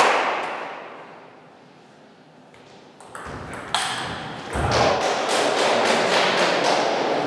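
Table tennis rally: after a quiet spell, the plastic ball clicks sharply and repeatedly off the bats and the table from about three seconds in, each click ringing in a large hall. A dull thud comes partway through the rally.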